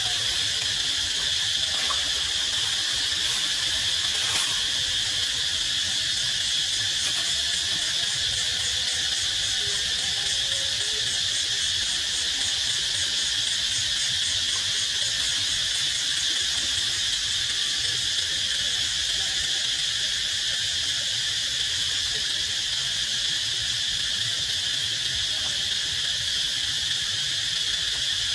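Steady chorus of insects: a continuous high-pitched trilling drone that holds unchanged throughout.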